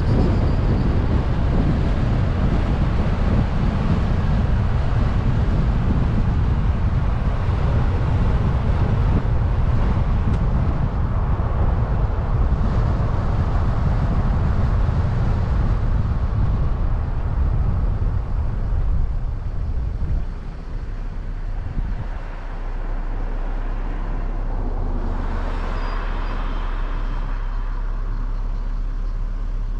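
Road and wind noise from a moving vehicle, a rumbling, buffeting rush. About twenty seconds in it drops to a steadier low engine hum, with a short higher-pitched sound a few seconds later.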